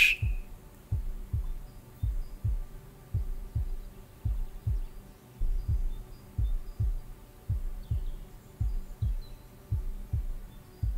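Recorded heartbeat sound effect: a slow, steady double thump (lub-dub) about once a second, over a faint sustained ambient drone.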